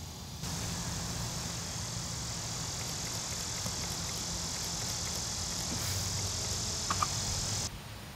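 Steady outdoor background noise, a hiss with a low hum, that starts and stops abruptly. A short double click comes about seven seconds in.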